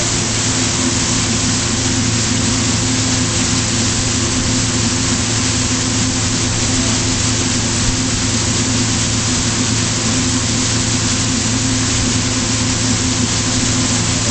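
Pontoon boat's engine running steadily at a constant pitch at full throttle, under a loud, even rush of wind and water as the boat planes along at top speed.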